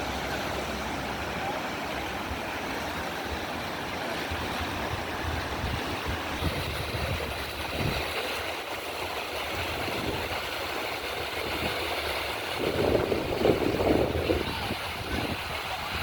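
River water rushing through rapids around a raft: a steady noisy rush with a louder surge near the end.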